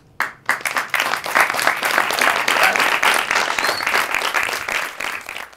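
Audience applauding: a couple of lone claps, then full applause within about a second, easing off slightly near the end.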